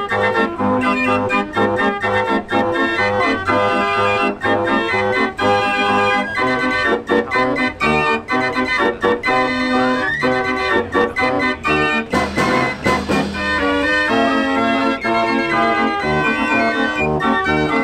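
A 49-key Marenghi fair organ playing a tune, its melody over a steady, evenly pulsing bass and chord accompaniment, with a burst of percussion about twelve seconds in.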